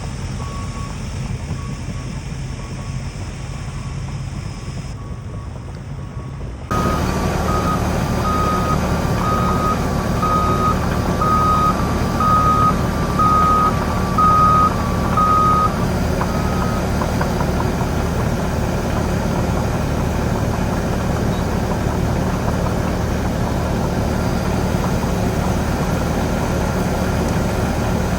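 An engine running steadily, with a reversing alarm beeping about once a second. The engine noise becomes suddenly louder about seven seconds in, and the beeping stops about halfway through.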